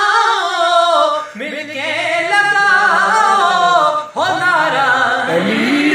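A singing voice carrying a slow, ornamented devotional melody in three phrases, with short breaks between them, about a second and a half in and again about four seconds in.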